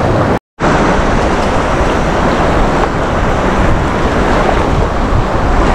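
Wind rushing on the microphone over the wash of small surf waves, a steady loud noise that drops out suddenly for a moment about half a second in.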